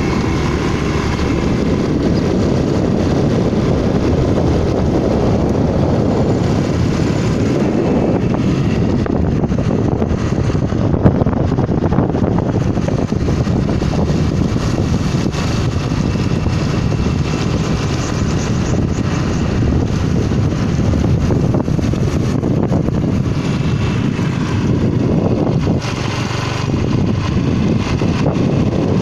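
Rice combine harvester running steadily under load, a dense engine-and-machinery drone, with one sharp knock about eleven seconds in.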